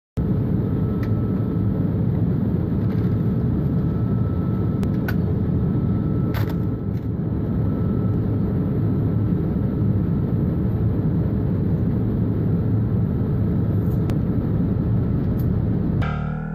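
Steady low rumble of an airliner cabin in flight, the engine and airflow noise heard from a seat, with a faint steady high tone over it and a few light clicks.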